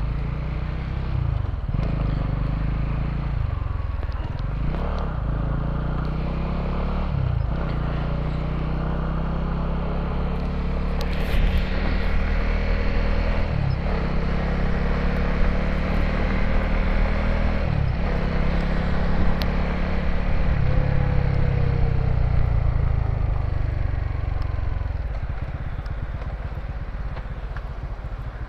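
Motorcycle engine running under way, its revs dropping sharply and climbing again several times as the rider changes gear, pulling harder in the middle and easing off near the end.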